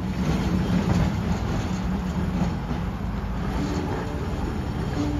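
Vintage electric tram running with a steady low rumble and hum. Music with held notes begins about three and a half seconds in.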